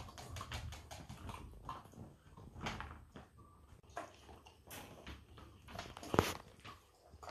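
German wirehaired pointer puppies eating dry kibble from a stainless steel bowl: scattered clicks and crunches, with a louder knock about six seconds in.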